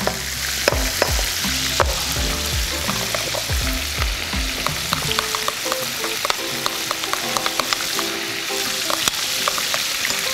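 Battered cod fillets frying in hot oil in a cast iron skillet, a steady sizzle, with a spoon clicking and scraping against a bowl as tartar sauce is stirred.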